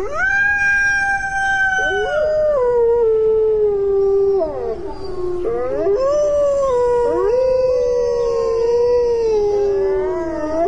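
A pack of wolves howling in chorus: long drawn-out howls that slide slowly down in pitch, with a second voice joining about two seconds in and fresh howls rising and overlapping from the middle on, over a steady hiss.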